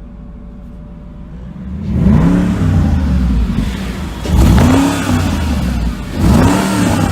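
Exotic sports car's engine and exhaust idling with a low rumble, then revved three times, each rev climbing and falling back, about two seconds apart.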